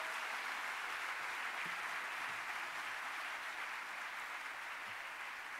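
Large audience applauding steadily, slowly dying down.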